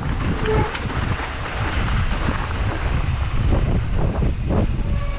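Wind buffeting the microphone: a steady low rumble with a few scattered knocks.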